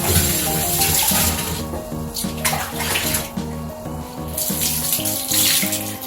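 Water spraying from a handheld shower head during a kitten's bath, the spray cutting out and coming back twice, over background music.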